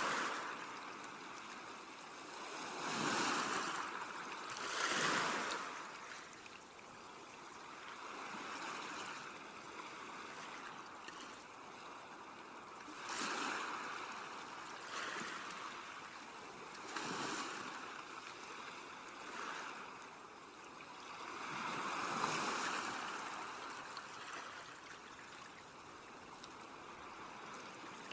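Sea waves breaking and washing in, swelling and falling away every few seconds, with the biggest surges about three, five and twenty-two seconds in.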